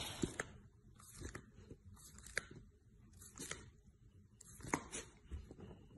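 Faint, irregular rustles and soft clicks from a golden retriever puppy moving on a fleecy blanket.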